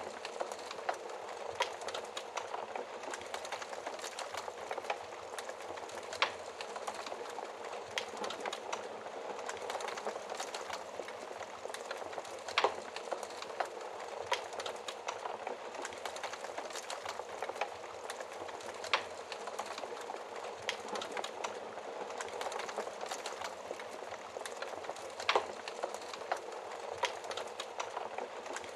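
Wood fire crackling: a steady soft hiss with many small snaps and a few louder pops about every six seconds.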